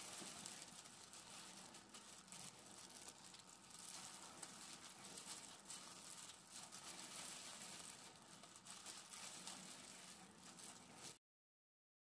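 Clear disposable plastic gloves crinkling, with the rice squishing, as hands knead and squeeze tuna-mayo rice in a glass bowl; a faint rustle full of small crackles that stops abruptly near the end.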